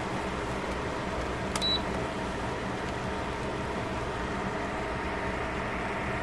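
Steady hiss of vegetables simmering in broth in a foil-lined pan, over a low hum. About one and a half seconds in there is a short click and then a brief high beep.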